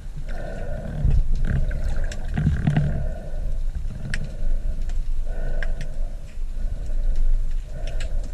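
Underwater sound picked up by a diver's camera: a low rushing rumble of moving water, a mid-pitched hum that comes and goes every second or so, and scattered sharp clicks.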